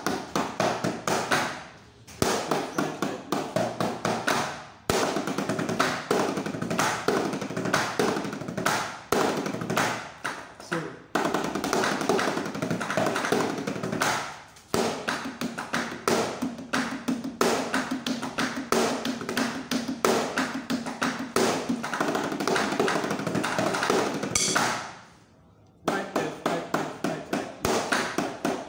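Wooden drumsticks playing fast runs of strokes on the rubber pads of a homemade wooden practice kit, in bursts broken by short pauses. A low steady tone sounds under the strokes for several seconds in the middle.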